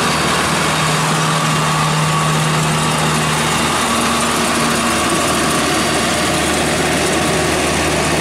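Kubota engine of a homemade tracked rotary tiller running steadily as the machine tills a wet rice paddy, a continuous low engine hum.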